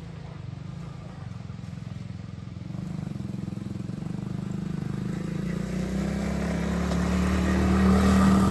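Small 110 cc kids' four-wheeler engine running, getting steadily louder toward the end.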